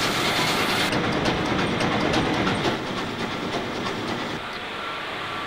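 Huge straight-eight, two-stroke, supercharged diesel engine running: a loud, dense, rhythmic mechanical clatter that eases slightly about three seconds in.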